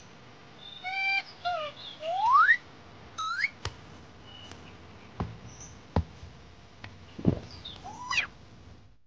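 Baby monkey's high-pitched squeaky calls, several rising steeply in pitch, in short bouts over the first few seconds and again near the end, with a few sharp knocks in between.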